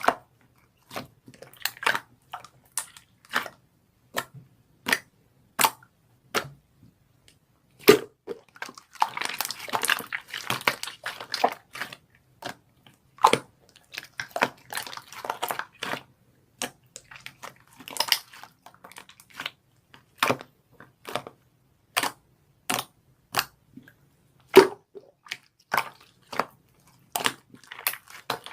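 Irregular sharp clicks and crackles, sometimes several close together, with a few longer crunchy stretches of a second or two.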